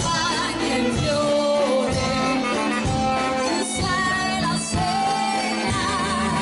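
Live folk dance music from a band, with a steady beat and a wavering melody line.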